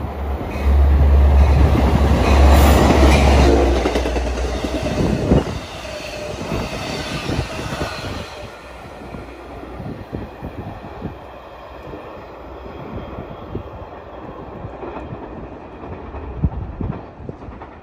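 Long Island Rail Road train of C3 bi-level coaches passing close by: a loud, deep rumble for the first few seconds, then wheels clacking over the rails as the coaches go by. The sound fades out at about nine seconds, leaving light background noise.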